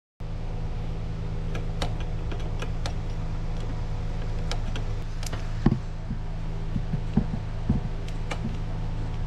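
Scattered light clicks and taps of hands working metal brake-line fittings in a truck engine bay, over a steady droning hum.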